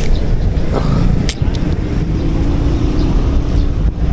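Steady low rumble of road traffic, with a faint engine hum of a passing vehicle about halfway through. Two short sharp clicks, one at the start and one about a second in.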